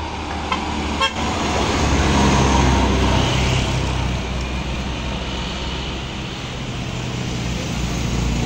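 Heavy diesel truck engine pulling a loaded truck up a steep climb, loudest about two seconds in as it passes close, then easing as it climbs away. Two short horn toots sound about half a second and a second in.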